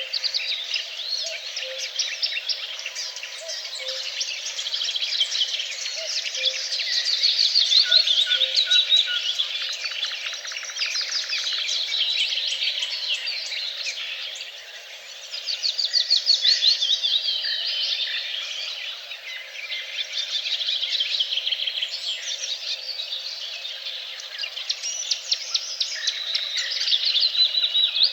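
A chorus of several songbirds singing at once, a dense, overlapping mix of chirps and fast trills. A loud run of rapidly repeated notes stands out just past the middle.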